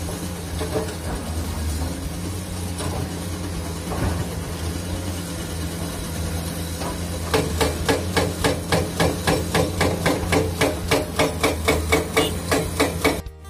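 Diesel excavator engine running steadily. About halfway through, a hydraulic breaker starts hammering rock in rapid, even blows, about four a second.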